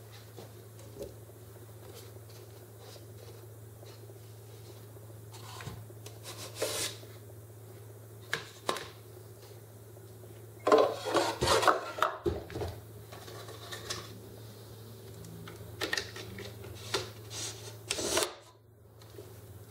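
Handling of a 3.2 mm plywood wine box: a glass wine bottle is lowered into it, with a cluster of wooden knocks and scrapes about halfway through, and later the plywood lid is pressed on with a few more knocks and rubbing.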